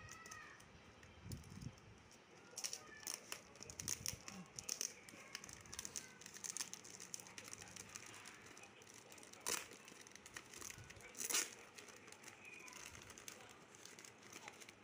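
Thin plastic courier mailer crinkling and tearing as it is slit with a utility knife and pulled open by hand. The crackles are irregular, with a couple of louder ones partway through.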